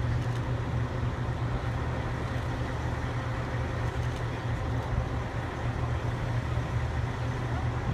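Engines idling, a steady low hum with a faint, steady higher whine over it.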